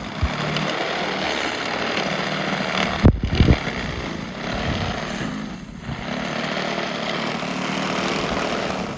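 Electric snow blower running steadily with a motor whir, briefly dipping twice, with a few low thumps about three seconds in.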